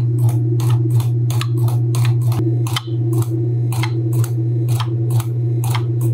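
Forging press running as its dies squeeze a red-hot damascus billet: a loud, steady electric-motor hum, with quick sharp ticks about three times a second over it.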